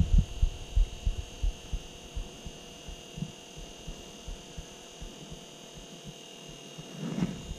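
Wind buffeting the microphone in irregular low thumps, heaviest in the first two seconds and easing off in the middle, over a faint steady high-pitched whine.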